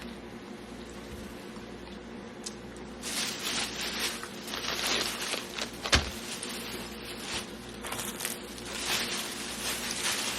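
Snack packaging crinkling and rustling in irregular spurts, with one sharp click about six seconds in.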